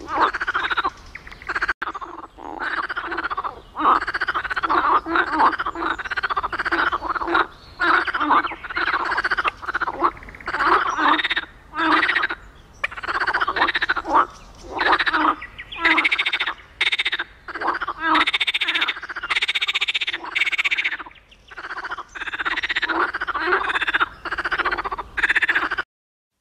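Marsh frogs (Pelophylax ridibundus) calling: a long series of quick, pulsed croaks, one call after another with short gaps between them, cutting off abruptly near the end.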